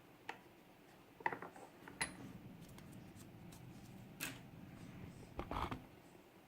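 Metal clicks and light rattling from a picked pin-tumbler lock as its core is turned further with the tension tool, the pins loose inside. Several separate sharp clicks, with a quick cluster of them near the end.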